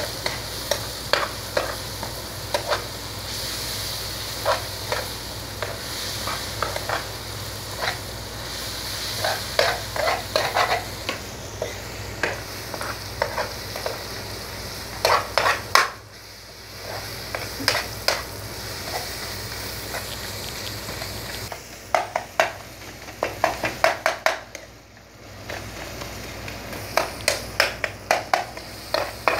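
Sliced onions, green chillies and ginger frying in oil in a pan, sizzling steadily, while a spatula stirs them and clacks and scrapes against the pan in quick clusters. The sizzle briefly drops away twice.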